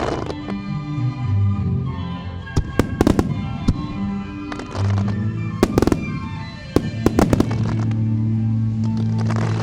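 Fireworks shells bursting in a string of sharp bangs with crackling tails, over music with long held notes.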